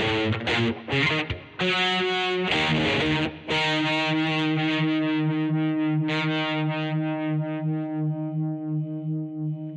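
Greco EG-550 electric guitar through a Peavey Vypyr VIP 2 modelling amp with a distorted tone: a few short, choppy chords, then a chord held from about a third of the way in that rings on and slowly fades.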